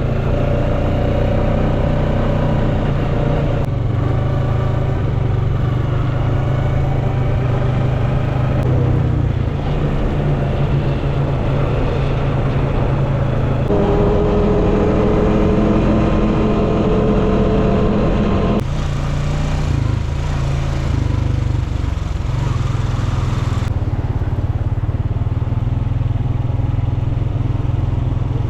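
Quad bike engine running under way, its pitch rising and falling with the throttle over a heavy low rumble. The sound changes abruptly every few seconds.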